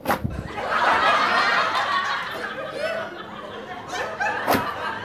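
A crowd laughing, like a sitcom laugh track, with a sharp thump right at the start and another about four and a half seconds in.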